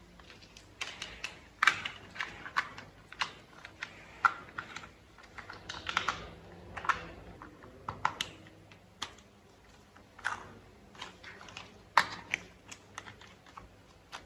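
Small plastic toy-vehicle parts being handled and fitted together: irregular light clicks, taps and brief scrapes, a few sharper snaps among them.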